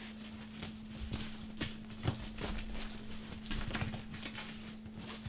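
Irregular light knocks and clicks of handling as a large padded camera bag is worn and shifted on the back, its straps and fittings knocking, over a faint steady low hum.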